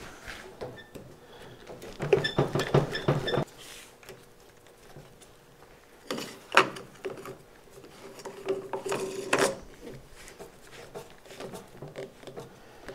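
Plastic compression fitting and black poly pipe being worked by hand: scrapes, creaks and rattles as the pipe is pushed into the fitting and the collar is screwed on. The sounds come in a few short bursts, with a sharp click about six and a half seconds in.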